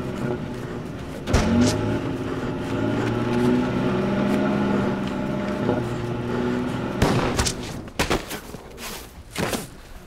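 A truck engine running and revving as it drives over rough ground, with a heavy thump about a second in. Near the end the engine gives way to a string of sharp gunshots.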